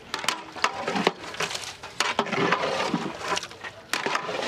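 A long-handled paddle mixing raw beef with yogurt, spice pastes and oil in a large metal pot for biryani: wet squelching and scraping, with repeated sharp knocks of the paddle against the pot.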